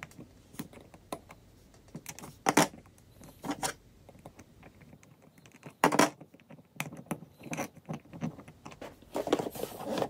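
Small, irregular clicks and taps of hands fitting wires and metal connector pins into a 3D-printed plastic housing with tweezers, with a few sharper knocks and a busier run of handling near the end.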